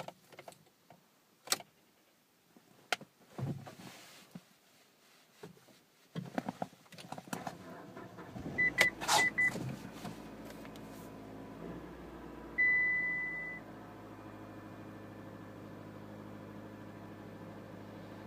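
Scattered clicks and knocks in a car, then two or three short electronic beeps and a longer beep of the kind a car's warning chime gives. Under them a steady low hum sets in and runs on evenly: the Mitsubishi Lancer's engine running quietly with no revving.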